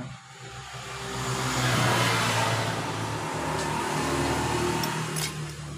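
A motor vehicle's engine running close by, growing louder over the first two seconds, holding, then dropping away near the end. There is a short click about five seconds in.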